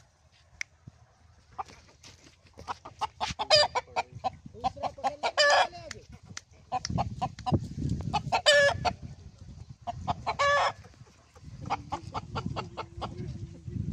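Shamo-Aseel rooster clucking in quick runs of short notes, broken every two to three seconds by a loud, short squawking call.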